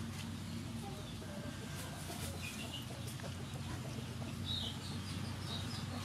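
Chickens clucking in the background, a few short calls about two and a half seconds in and more from about four and a half seconds, over a steady low rumble, with a few faint crackles.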